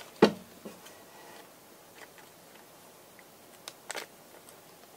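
Scissors snipping at a plastic packet of slime powder: one sharp click just after the start, then a few faint, scattered clicks.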